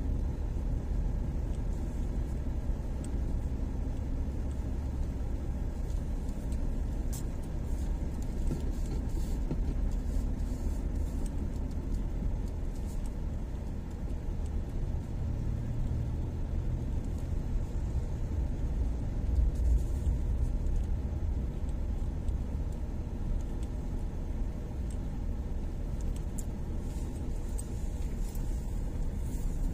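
Steady low rumble of a truck driving on a dirt haul road, its engine and tyres heard from inside the cab, with a few light rattles.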